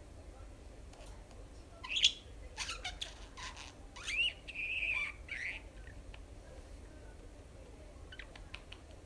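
Budgerigar calling in a quick run of short chirps starting about two seconds in, including one rising call and one held call, followed by a few faint clicks near the end.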